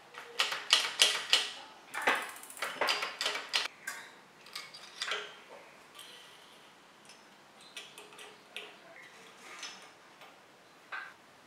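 Sharp metal clicks and rattles of a bicycle brake lever and its steel brake cable being handled as the inner cable is threaded through. A quick run of clicks comes in the first few seconds, then sparser, softer ones.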